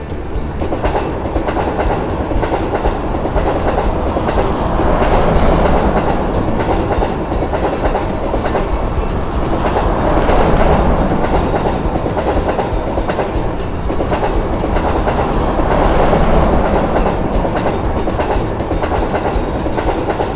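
Electric train running past at speed, a dense continuous running noise of wheels on rail that swells in loudness about every five to six seconds.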